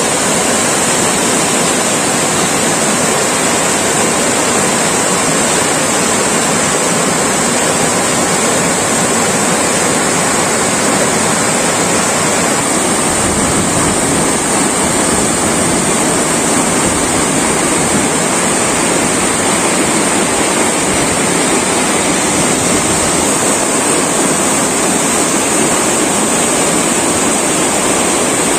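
Floodwater of the Yeleru river rushing and churning in a loud, steady torrent, with a constant high hiss over it.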